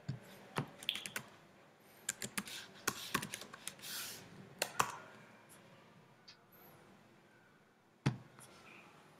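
Keystrokes and clicks on a computer keyboard in irregular bursts. A quick flurry comes through the middle, then one last sharp click near the end.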